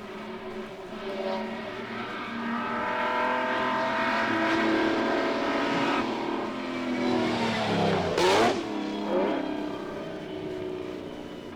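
Mercedes-Benz Grand Prix racing car running at speed, growing louder as it approaches. It passes close about eight seconds in with a sudden drop in pitch, then fades away.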